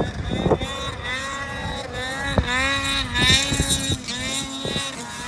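Snowmobile engine revving, its pitch rising and falling again and again.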